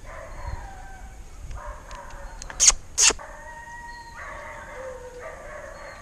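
Hunting dogs baying and howling in long, drawn-out calls, one after another: the pack giving tongue at game it has stopped. Two short, sharp, loud noises cut in near the middle.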